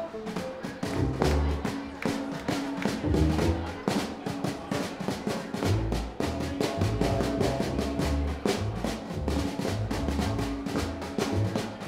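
Live acoustic band playing an instrumental passage: upright bass, acoustic guitars and mandolin over a snare drum struck rapidly with sticks.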